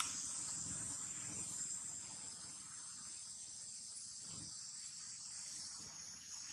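A steady, high-pitched chorus of insects trilling in the background, with a faint low rumble beneath.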